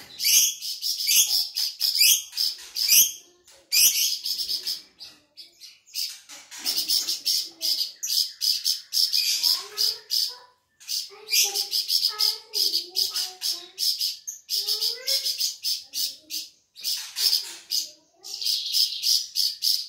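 Flamboyan bird singing in full voice: rapid runs of sharp, high chirps broken by short pauses. Lower, wavering calls mix in around the middle.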